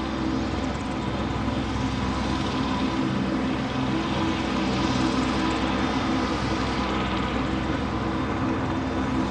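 Steady machine drone: several held tones over an even hiss, unchanging throughout, like an engine running at constant speed.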